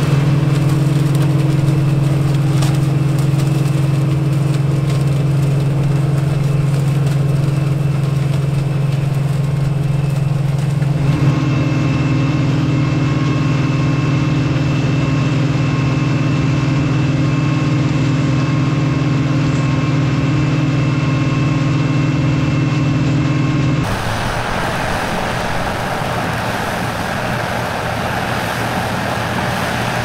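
OXBO 9630 sweet corn harvester's engine and picking machinery running steadily with a low, even hum. The sound shifts abruptly about 11 seconds in, and again about 24 seconds in, where the hum gives way to a rougher, noisier rumble.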